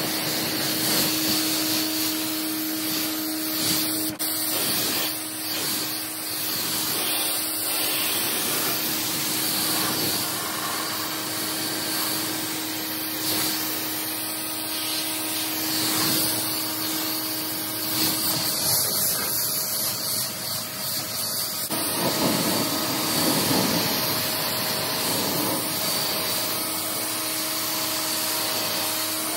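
Water spraying from a hose trigger nozzle onto a car's bodywork and glass, a steady hiss.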